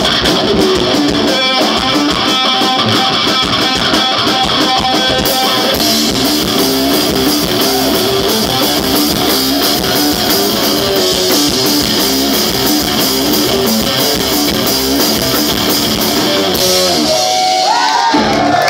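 Live rock played loud by a guitar-and-drums duo: distorted electric guitar repeating a riff over a drum kit with cymbals. The cymbals drop out near the end, as the song draws to a close.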